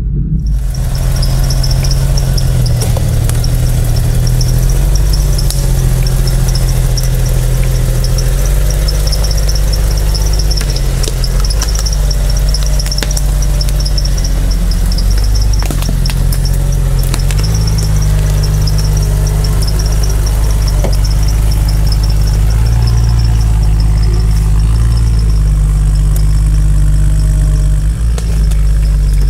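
Lifted Jeep Wrangler's engine running under load as it crawls slowly up a steep, rutted dirt trail, its low note shifting as the throttle changes. A steady high whine sits above it.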